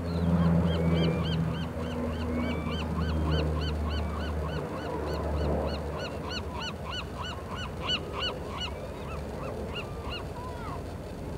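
A flock of birds calling, many short high calls repeated several times a second and overlapping, thickest in the middle. Beneath them a low engine drone fades out about halfway through.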